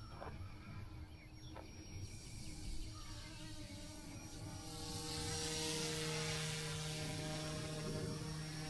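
GOOSKY S2 RC helicopter in flight: the steady whine of its electric motor and rotor blades, growing louder and hissier about halfway through.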